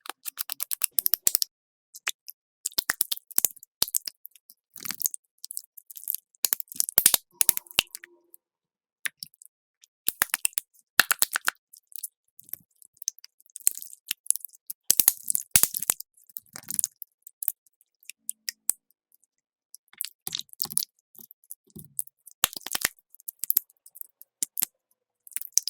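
Slime being pressed and squished, giving sticky crackles and small pops in quick clusters with short pauses between them.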